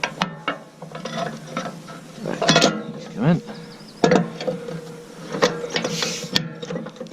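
Hand tools working on a grassland roller's bearing bolts: scattered metal clicks, knocks and rubbing from spanners and wrenches, over a faint steady hum.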